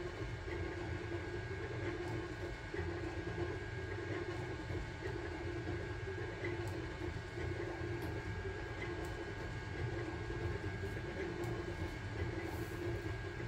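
Sunlu Terminator 3 FDM 3D printer running a print: a steady mechanical hum from its motors and fans, with a high steady tone and scattered faint ticks.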